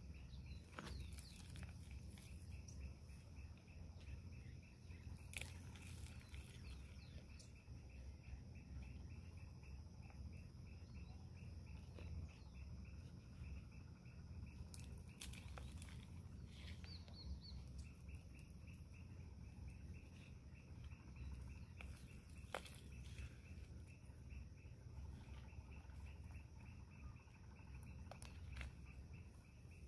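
A cricket chirping in a fast, even pulse, with a short break about halfway, over a faint low rumble. A few sharp clicks and scrapes come from a small hand tool digging soil.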